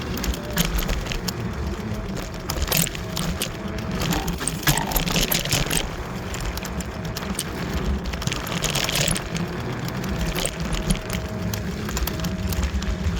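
Wolf Warrior off-road electric scooter riding over a rough, rocky trail: frame and tyres rattling and clattering on stones over a steady rumble, with a faint motor whine that comes and goes.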